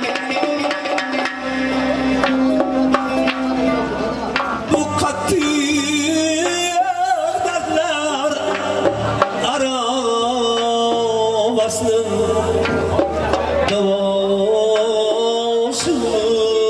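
Live Uzbek folk music from a small amplified ensemble: doira frame drums keep the beat under long-necked plucked lutes and keyboard, and a male voice sings a wavering, ornamented melody from about a third of the way in.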